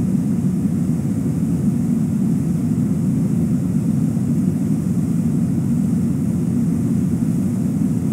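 Steady, deep roar of a waterfall and its rushing river water, unchanging throughout.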